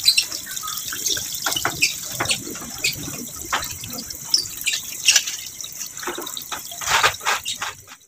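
Rinse water being poured off a plastic tub of washed corn kernels, running out over the rim past a hand that holds the grain back, with irregular splashing and trickling onto the ground.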